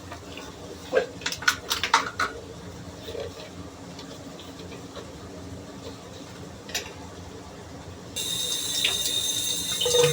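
Hard plastic vacuum-cleaner parts clatter and knock together a few times in quick succession. About eight seconds in a tap comes on suddenly and water runs steadily, rinsing the parts.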